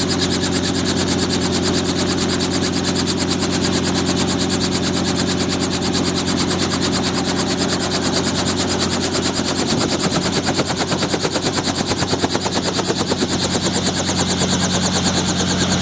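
Robinson R44 helicopter running on the ground with its rotors turning: a rapid, steady chop of the main rotor blades over the even hum of its piston engine.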